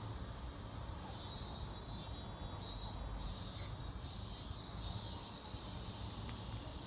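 Insects chirring in a high, steady trill that grows louder about a second in, then breaks off and resumes several times, over a low background rumble.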